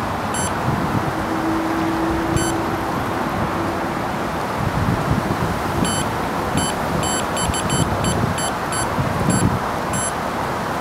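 Electronic carp bite alarm giving short high beeps, one or two at first and then a rapid flurry in the second half, the sign of line being pulled over it by a running fish. Steady wind buffeting on the microphone underneath.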